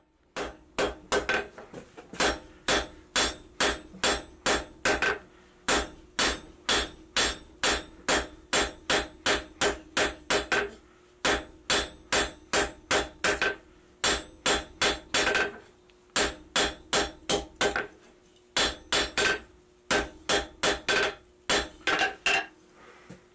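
Hand hammer striking a hot spring-steel bar on an anvil, about two or three blows a second, with the anvil ringing under each blow. It is drawing the tang end of a tapered reamer down to a rough point. The blows pause briefly a few times and stop shortly before the end.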